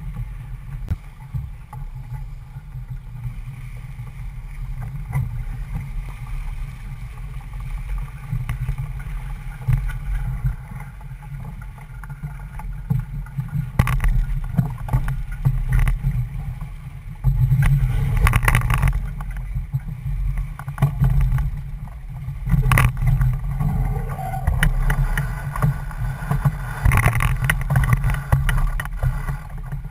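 Wind buffeting the microphone of a C&C 31 sailboat under way through choppy water, a steady low rumble. Irregular knocks and clatters come through it, louder and more frequent in the second half as the boat tacks.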